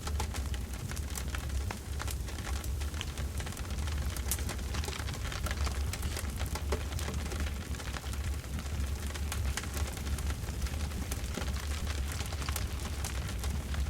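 Campfire crackling steadily, with many small sharp pops and snaps over a constant low rumble.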